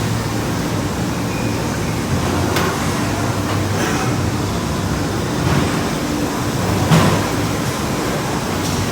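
Steady low hum of running machinery, with a few light knocks, the loudest about seven seconds in.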